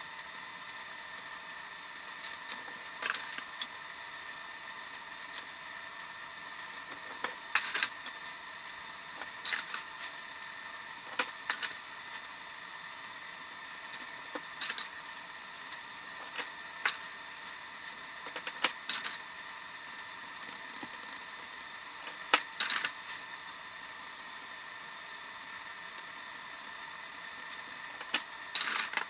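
Metal engine parts and hand tools clinking and rattling in short, irregular bursts, about a dozen over the stretch, during hand reassembly of a Suzuki DR-Z400 engine's clutch side. A faint, steady high whine runs underneath.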